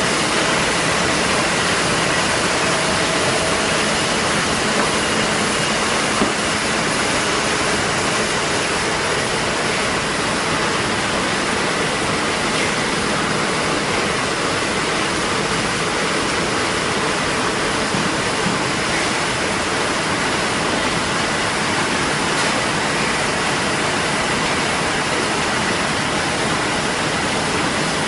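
ZF-323 courier-envelope making machine running steadily: an even rushing noise with a faint steady whine, and no distinct strokes or rhythm.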